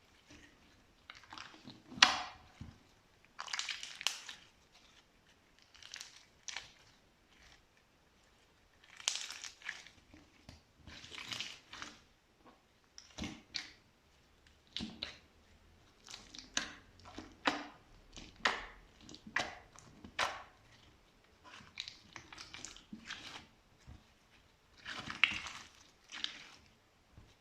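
Slime being worked by hand, making irregular squishes and crackles about once a second, with a sharp snap about two seconds in that is the loudest.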